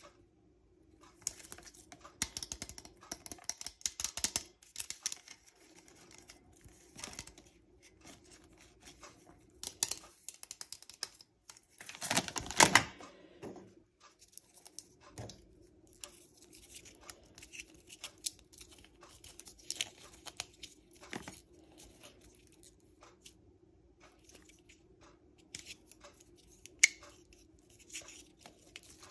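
Small handling noises: scattered clicks, scratching and rustling over a faint steady hum, with a louder tearing sound about twelve seconds in.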